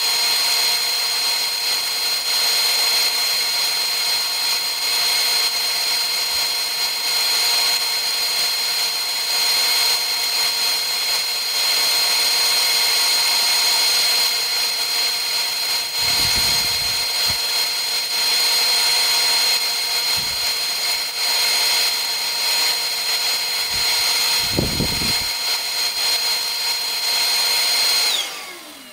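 Large bandsaw running steadily with a constant whine while resawing a board into thin strips for bent lamination, with a couple of low knocks partway through. Near the end the machine is switched off: the whine slides down in pitch and the noise falls away.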